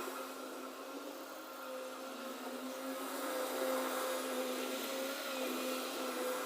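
Bobcat skid-steer loader's engine running steadily with a constant, even-pitched whine.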